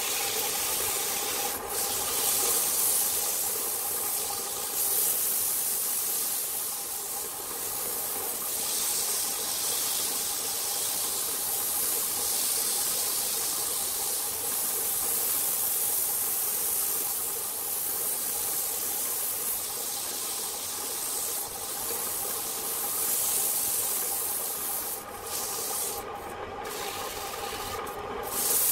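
Sandpaper held against a wooden vase spinning on a lathe: a steady rubbing hiss over the steady hum of the lathe's electric motor. The hiss breaks off briefly a few times near the end.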